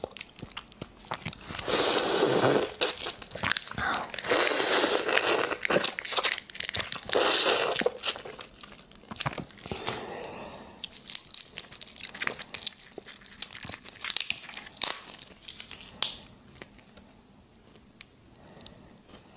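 Raw shrimp being peeled by hand close to the microphone: shells cracking and crinkling as they are pulled apart, with tearing and wet biting sounds. Busy, with several louder bursts in the first half, then sparser, quieter clicks.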